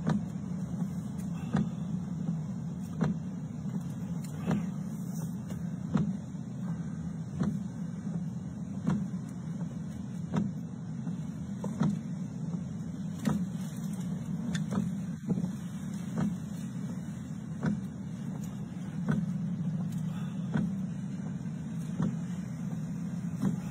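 Car windshield wipers sweeping back and forth, a stroke about every one and a half seconds, over the steady low hum of the car's cabin.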